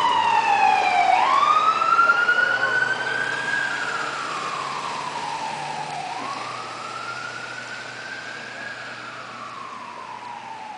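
Ambulance's electronic siren on a slow wail, rising and falling about every five seconds and growing steadily fainter as the ambulance drives away.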